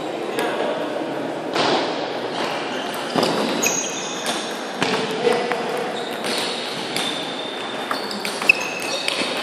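Table tennis balls clicking off tables and bats in a reverberant sports hall, a few sharp ticks scattered through, over a murmur of voices.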